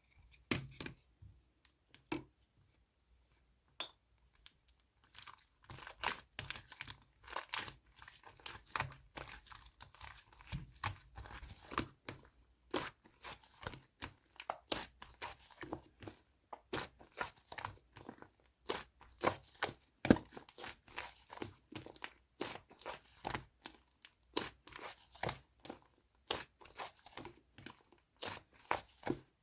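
Slime being squeezed and worked by hand, giving a run of small crackles, pops and squelches. The crackles are sparse for the first few seconds, then come thick and fast.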